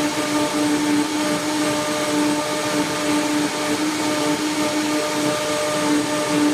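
Vitamix 5200 blender running, blending peeled bananas and water into a smoothie: a steady motor whine over an even rushing noise.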